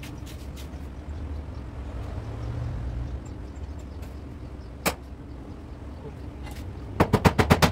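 A steady low rumble with a single sharp knock about five seconds in. Near the end, a fast run of hammer blows on car body sheet metal begins, several a second.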